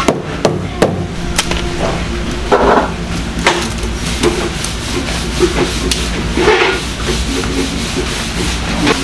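Plastic bowl scraping and knocking against a large plastic tub as seasonings are scooped and dropped in by hand. Scattered short knocks and rustles sound over a steady low hum.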